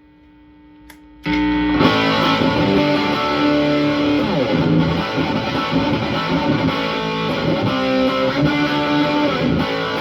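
Heavily overdriven electric guitar played through a Marshall JCM800-style tube amp with a Wampler Pantheon overdrive pedal at its medium gain setting. A quiet held tone sounds for about the first second, then loud, saturated chords and riffs start abruptly and carry on.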